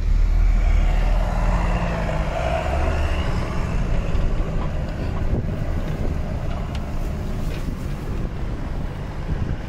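Off-road 4x4's engine running with a steady low drone.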